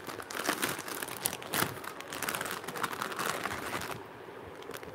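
Clear plastic jewellery packets crinkling as they are handled, dying down after about four seconds.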